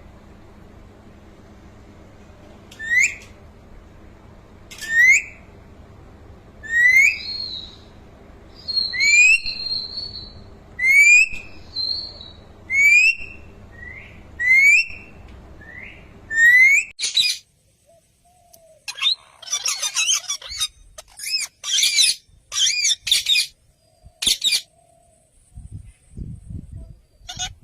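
Parrot whistling a short rising note about every two seconds, over a steady low hum. About seventeen seconds in, the hum stops and harsher, raspy squawks and calls follow in quick bursts.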